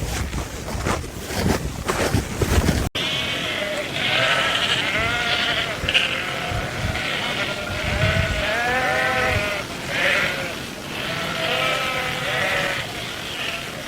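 Wind gusting hard for about three seconds, then an abrupt cut to a large flock of sheep bleating, many overlapping calls.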